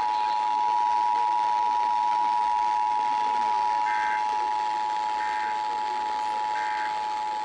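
Emergency Alert System attention signal from a broadcast station: the steady two-tone alarm of 853 and 960 Hz sounding together, which marks the start of the monthly EAS test message. Underneath it, three faint short data bursts come about a second and a half apart, from a second station's alert.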